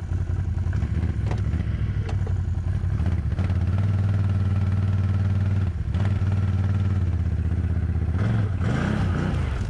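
ATV engine idling steadily close by, with a brief dip about six seconds in and a few quick blips of the throttle near the end.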